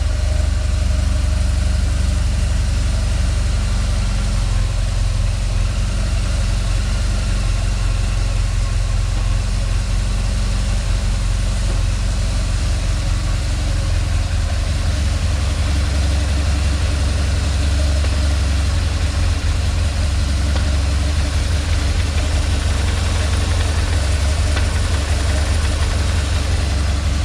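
BMW R1200GS boxer-twin engine idling steadily with a rattle from the gearbox area. This is the rattling noise these bikes make with the clutch released, which the owner traces to the clutch actuating rod vibrating once its textile damping material has worn.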